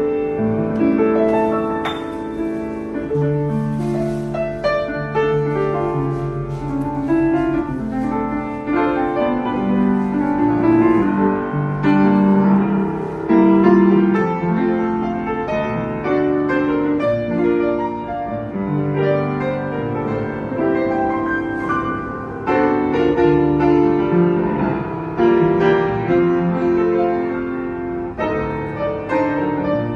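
Kawai upright piano being played, a continuous classical-style passage of melody over chords to demonstrate its tone.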